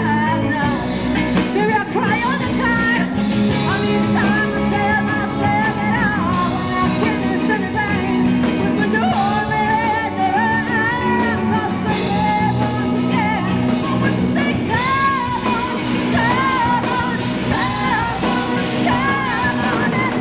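A live rock band playing: women singing into microphones over electric guitars and a drum kit, the level steady and loud throughout.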